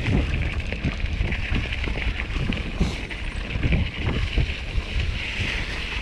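Wind buffeting the microphone over the low rumble of a mountain bike rolling down a rough dirt trail, with frequent short knocks and rattles as it jolts over bumps and stones.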